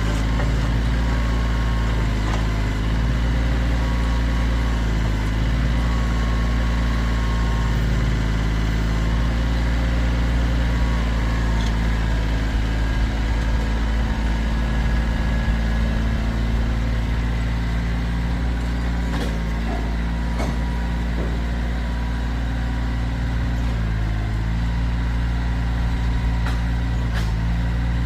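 Kioti tractor's diesel engine running steadily, its pitch shifting slightly a few times, with a few sharp knocks in the second half.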